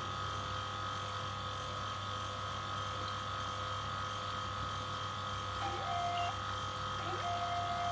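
Steady electrical hum and buzz of an EDM machine's power unit, still switched on, with its fixed tones unchanging. Two short, higher squeaky tones sound in the second half.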